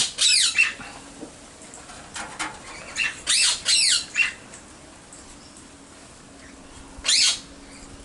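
Pet cockatoo giving loud, harsh squawks in three bouts: a pair at the start, a cluster of three about three seconds in, and a single one near the end.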